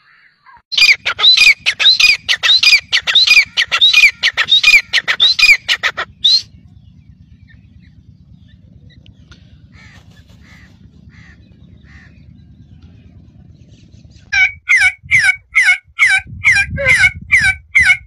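Male black francolin calling: a fast run of loud notes, about three a second, each dropping in pitch, lasting about five seconds. After a quieter stretch with a few faint calls, another game bird starts a similar fast series of falling notes about three-quarters of the way through.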